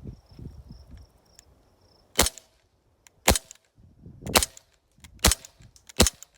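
Crosman Mako CO2 blowback BB pistol firing five shots at roughly one-second intervals, starting about two seconds in, each a sharp crack. A faint insect chirps steadily before the first shot.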